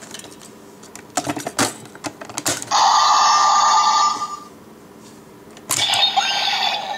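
DX Sengoku Driver toy belt with the orange lock seed: several sharp plastic clicks as the parts are worked, then loud electronic sound effects from the toy's small speaker, a bright ringing tone lasting about two seconds and another effect with rising sweeps near the end.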